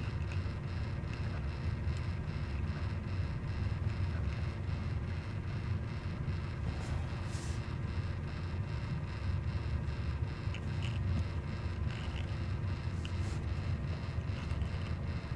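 Steady low hum with faint ticks now and then and a short hiss about seven seconds in.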